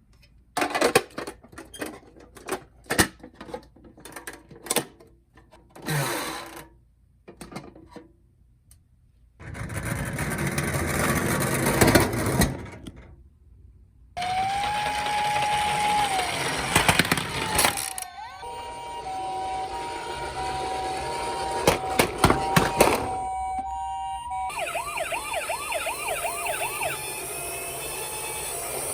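Toy ambulance minicars clacking as they are handled, then a rushing whir. After that the cars' electronic sound chips play siren sounds: a steady tone that slides down, then a two-note high-low ambulance siren, then a fast warbling yelp.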